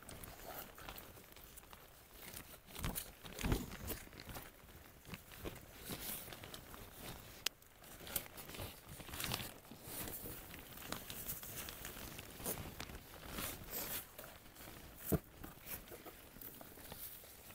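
Packaging crinkling and rustling in irregular bursts as rose seedlings are unwrapped and handled, with a few sharper knocks, the loudest about three and a half seconds in and near the end.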